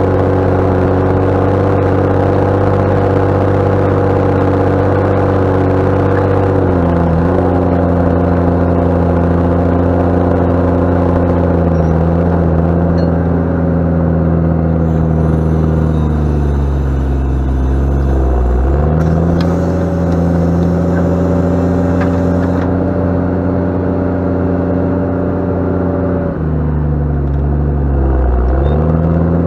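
Straight-six Cummins diesel of a JCB Fastrac 7270 tractor growling under load while ploughing. The engine speed is pulled down and recovers three times: about seven seconds in, more deeply around eighteen seconds, and again near the end.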